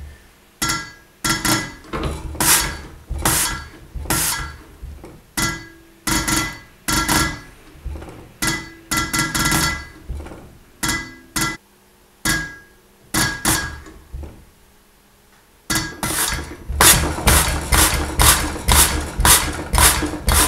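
Land Rover 2.25-litre diesel injector on a hand-lever pop tester, popping and spraying with each stroke of the pump lever as its opening pressure is tested. There are short sharp bursts about once a second, pausing briefly in the middle, then a faster run of about two a second near the end.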